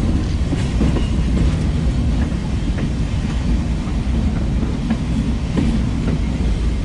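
Train running on the track, heard from the open rear platform of a moving caboose: a steady low rumble of the wheels on the rails, with a few faint clicks here and there.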